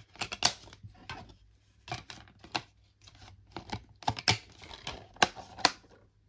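Sharp plastic clicks and clatter as DVDs are pressed onto and lifted off the centre hubs of a two-disc plastic DVD case and the case is shut, in irregular bursts with the loudest clicks between about four and six seconds in.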